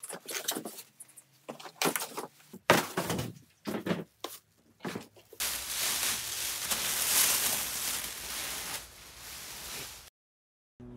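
Knocks and scrapes as the table saw's plastic housing is lifted and handled, then a long crinkling rustle of the plastic bag being pulled off its table top. The rustle stops suddenly near the end.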